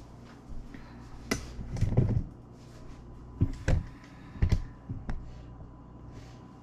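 Handling noise from a camera being picked up and repositioned: a string of knocks and bumps, about six, over a few seconds.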